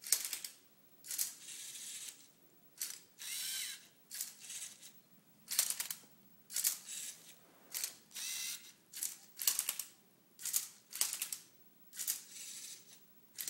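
LEGO Mindstorms Tilted Twister robot's servo motors whirring in short bursts, roughly one a second, with clicking from the plastic mechanism as it turns and flips a Rubik's cube through the last moves of a solve.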